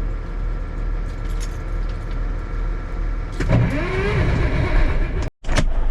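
Starter motor cranking the cold engine of a 1974 Kenworth log truck. A steady low rumble gives way, about three and a half seconds in, to a louder whirring crank whose pitch rises and falls, cut off abruptly near the end. The starter has been having trouble, and an earlier try gave only a click.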